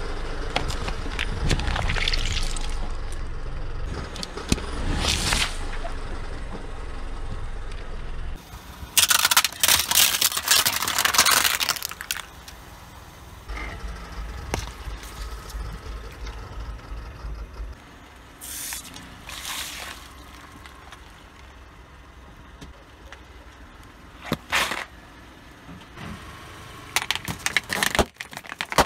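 A car tyre slowly rolling over and crushing objects one after another, with the engine running low underneath. About nine seconds in comes a long burst of crunching and splashing as a drink carton gives way, then a few shorter squashing sounds from oranges. Near the end there are sharp pops as balloons burst under the wheel.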